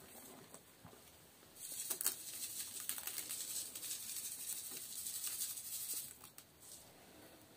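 Coarse salt-and-sugar curing mix sprinkled from a cup onto raw trout fillets in a plastic tub, a hissing patter of grains. It starts about a second and a half in and stops about six seconds in, after some soft handling of the fish.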